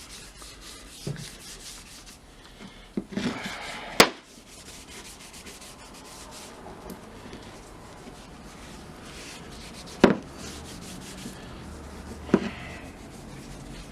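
Bowling alley paste wax being rubbed onto a sledgehammer in many quick back-and-forth strokes, a steady scrubbing hiss. It is broken by a few sharp knocks, the loudest about four seconds in and again about ten seconds in.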